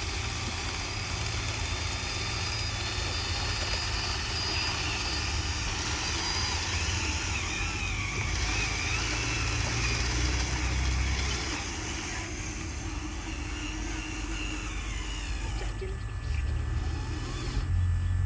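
Radio-controlled truck running: a faint whine that wavers in pitch over a steady low rumble.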